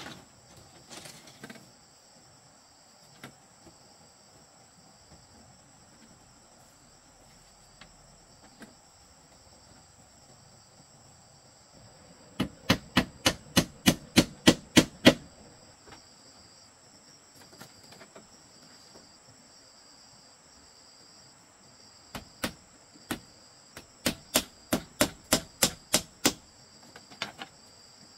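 Two runs of quick hammer blows on bamboo framing, about four a second: about ten blows in the middle and about a dozen near the end. A steady high-pitched insect trill sounds throughout.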